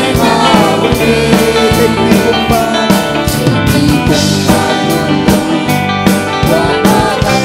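Praise and worship song: voices singing over a band with a drum kit keeping a steady beat and guitar.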